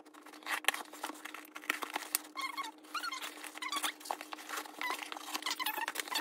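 A knife slitting the packing tape on a cardboard shipping box, then the cardboard flaps being pulled open: repeated scraping and clicking, with short squeaks from cardboard and tape rubbing in the middle.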